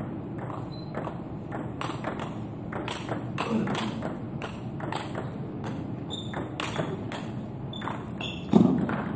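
Table tennis rally: the ball clicking off the bats and the table in quick succession. A louder thump comes near the end.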